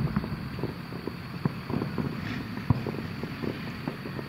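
Distant aerial firework shells bursting one after another at uneven intervals, dull booms and pops, with one sharper bang a little past halfway, over a steady low rumble.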